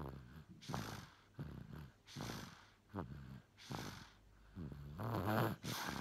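A sleeping baby snoring: about four quick breaths, one every second and a half or so, each a short buzzing snore followed by a breathy rush of air. The loudest snore comes near the end.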